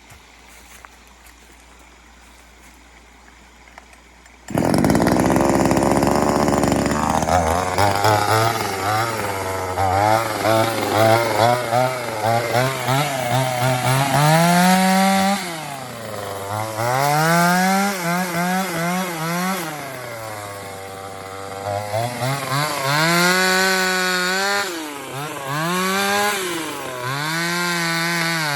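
Equus 25cc two-stroke chainsaw engine comes in suddenly about four seconds in, then is revved up and down over and over, dropping back toward idle between revs.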